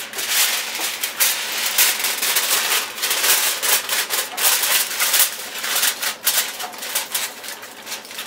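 Aluminium foil crinkling and rustling in irregular crackles as it is pressed down over a pot of biryani, sealing it for dum cooking.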